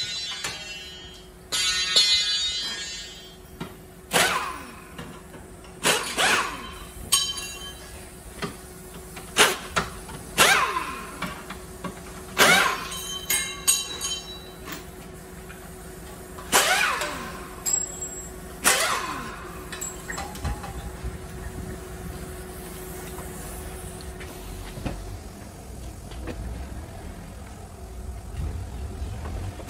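Pneumatic wrench on an air hose run in short whirring bursts, between sharp metal clanks and knocks as parts are unbolted from the underside of a car.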